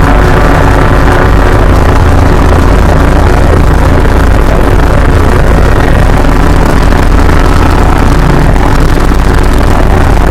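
Fan-made Emergency Alert System-style alarm blasted into heavy distortion and clipping: many layered steady tones over a harsh, buzzing rumble, held at constant full loudness without a break.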